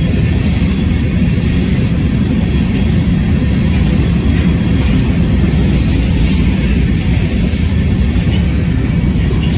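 Covered hopper cars of a freight train rolling past close by: a steady, loud rumble of steel wheels on the rails.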